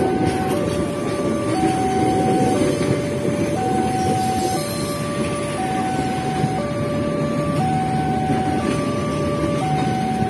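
Railway level-crossing alarm sounding its alternating two-tone signal, a higher and a lower tone of about a second each, over the continuous rumble and clatter of passenger coaches passing over the crossing.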